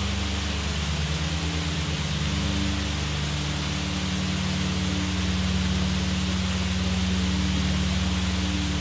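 Steady rushing of a high waterfall falling onto rocks and into a pool. Low sustained tones run underneath it.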